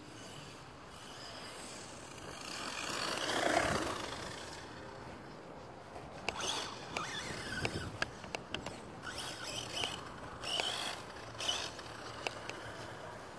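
Electric RC monster truck (Redcat Blackout XTE on a 3S brushless setup) running over dry grass: its motor whine swells and fades as it drives past about three and a half seconds in, then comes in short throttle bursts with sharp clicks and knocks as the truck bounces across the ground.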